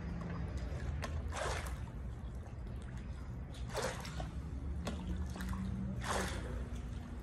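Pool water sloshing and splashing around a person squatting waist-deep, with a swell of splashing about every two seconds, three times, over a steady low rumble.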